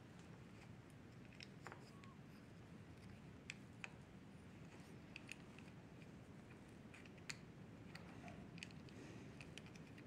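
Faint, scattered small clicks and ticks as fingers fit the retainers and contact parts back into a motorcycle handlebar switch housing, over near-silent room tone.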